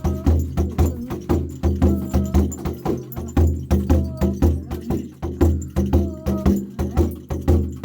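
Tuvan folk music: a quick, even rhythm of sharp wooden clicks over a steady low drone, with a wavering higher melody line coming and going.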